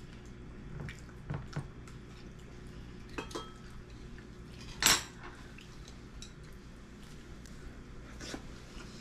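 Tableware during a meal: chopsticks tapping and clinking lightly against ceramic and wooden bowls and dishes, a scatter of small clicks with one louder clink about five seconds in.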